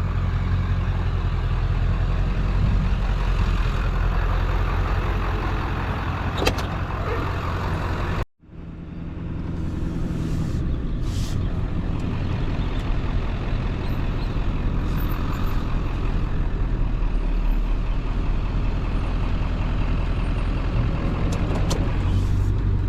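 Vehicle engine running steadily with road noise while driving. The sound breaks off for a moment about eight seconds in.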